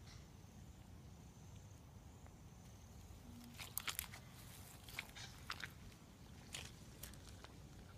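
Faint footsteps on damp grass and dead leaves: a few soft crunchy steps between about four and seven seconds in, over low steady background noise.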